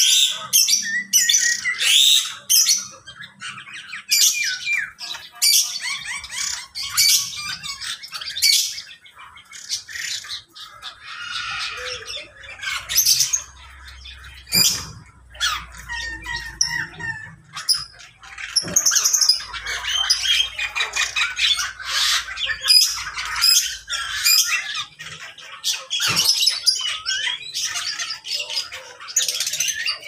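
Many cage birds in a mixed-species aviary chirping, squawking and calling over one another without a break, with a few sharp clicks among the calls.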